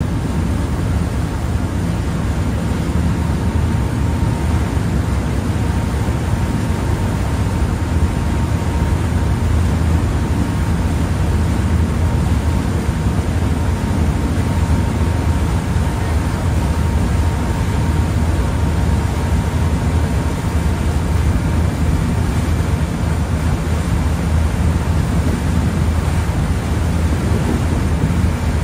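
A ferry's engine running steadily under way: a constant low drone with a faint steady whine above it, mixed with the rush of water along the hull.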